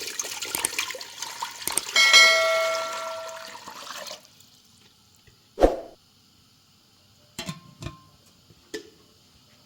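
Water pouring and splashing for about four seconds, with a metal clang about two seconds in that rings on briefly. After the water stops, one sharp knock and then a few softer knocks follow.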